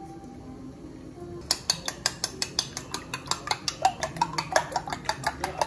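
A raw egg being beaten with a metal utensil in a small ceramic bowl: a quick, even run of clinks against the bowl, about six or seven a second, starting about a second and a half in.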